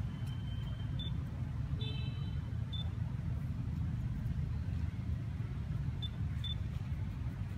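Steady low rumble of outdoor background noise, with a few short high-pitched chirps about one, two and six seconds in.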